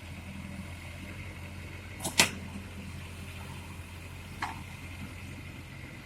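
Excavator's diesel engine running steadily as a low drone, with a sharp double knock about two seconds in and a fainter click a couple of seconds later.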